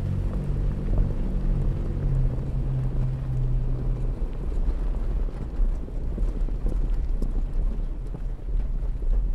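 Off-road truck driving along a dirt trail: a steady low engine hum that drops away about four seconds in, over a constant rumble from the tyres and body, with wind buffeting the microphone.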